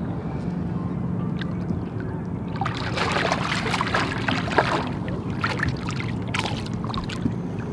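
A hooked smallmouth bass thrashing at the surface, splashing hard from about three seconds in, with a few smaller splashes after. A steady low hum runs underneath.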